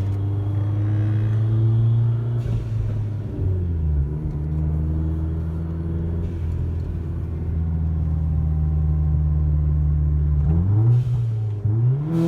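Hyundai Genesis Coupe's turbocharged engine running under load, making boost now that its charge pipe is reconnected. Steady drone with a change in engine speed about four seconds in, then revs climbing near the end.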